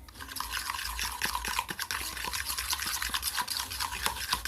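Homemade glue slime being stirred in a bowl: a continuous stream of quick, small wet clicks and squelches as the glue mixture is worked with the boric acid water activator that has just been dripped in.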